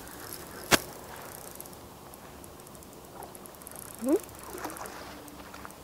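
Quiet outdoor background with one sharp click about a second in and a brief rising vocal sound about four seconds in.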